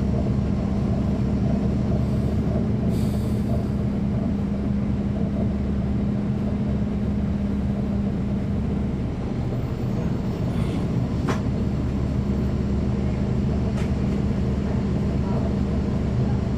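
Caterpillar C13 ACERT diesel engine of a NABI 40-foot transit bus running at a steady, unchanging pitch, heard from the rear seat inside the bus, close to the engine. A couple of short clicks come in the second half.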